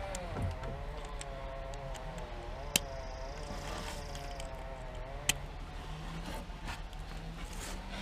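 A distant engine running steadily, its pitch wavering slowly up and down. Two sharp clicks stand out, about three and five seconds in.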